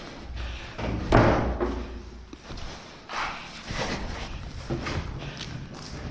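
A loud thump about a second in, then several softer knocks and scuffs: impacts of the kind a moving player makes on a head-mounted camera.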